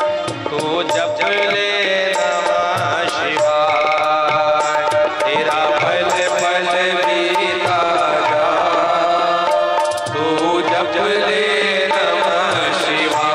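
Devotional kirtan music: tabla drumming under a continuous melodic line.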